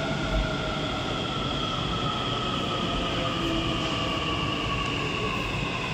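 Navi Mumbai Metro electric train pulling into the platform and slowing, its traction motors whining in several tones that slowly fall in pitch, over a steady rumble of wheels on rail.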